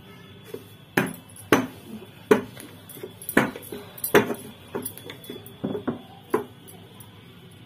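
A wooden rolling pin and a steel plate knocking and clattering together as thin dough is rolled out on the plate: about nine sharp, irregular knocks, the loudest a little over two and four seconds in.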